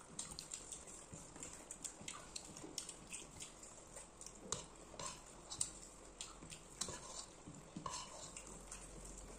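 Faint eating sounds: fingers mixing rice and curry on plates, with irregular small clicks and taps and a few light clinks of a spoon and dishes.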